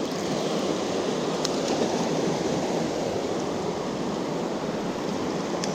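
Fast, high river current rushing steadily over rocks, a continuous loud wash of water.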